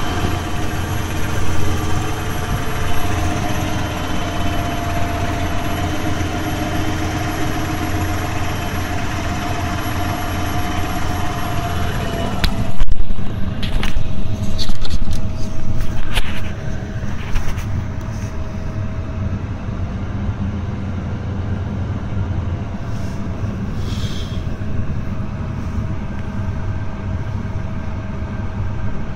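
Tractor diesel engine working hard under load, heard from inside the cab, with a steady whine over the engine note. From about thirteen to sixteen seconds in, loud noisy bursts as mud and water are flung up against the cab.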